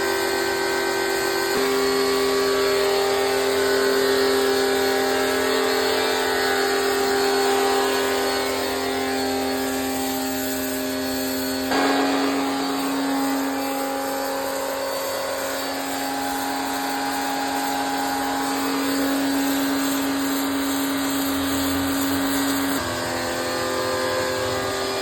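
Electric pressure washer running steadily, its motor and pump humming under the hiss of the water spray. The hum shifts abruptly in pitch a few times.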